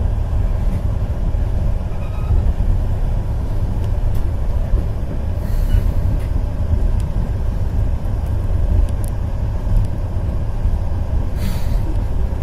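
Passenger train carriage running at speed on the rails, heard from inside the coach: a steady, dense low rumble of wheels and running gear with a few faint clicks.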